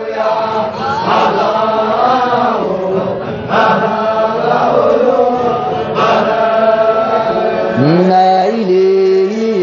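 Group of men chanting an Arabic Qadiriyya Sufi dhikr together, many voices overlapping. About eight seconds in, one strong voice enters with a sung line that rises and then holds.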